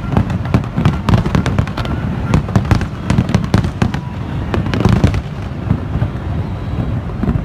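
Aerial firework shells bursting in quick succession: a dense run of bangs and crackles over a continuous rumble, with a cluster of louder bangs about five seconds in.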